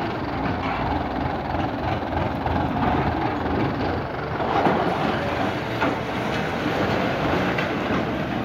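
Kubota M95 tractor's diesel engine running steadily, with the clanking rattle of its disc plough as it is lowered and cuts into hard, dry soil near the end.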